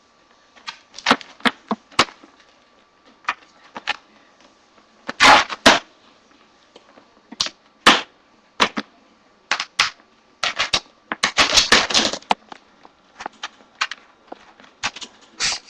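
Wire dog crate rattling and banging as a springer spaniel thrashes about with its blanket inside it: irregular sharp knocks, with a longer run of clattering about three-quarters of the way through.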